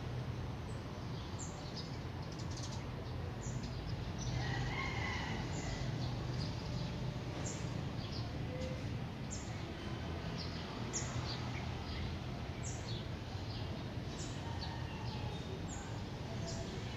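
Birds chirping: short high chirps about once every second or two over a steady low hum, with a brief longer call about four seconds in.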